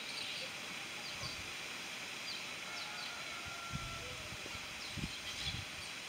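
Weaver birds giving short, high chirps over a steady outdoor hiss, with a few low thumps in the second half.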